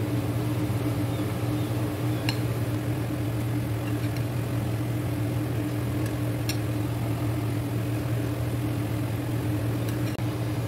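Cauliflower pakoras in gram-flour batter deep-frying in hot oil, a steady sizzle, over a steady low mechanical hum. Two faint clicks, about two and six and a half seconds in.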